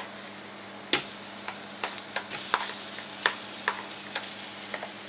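Vegetable filling sizzling in a hot metal kadai, with a metal spatula scraping and clicking against the pan at irregular moments, the sharpest knock about a second in.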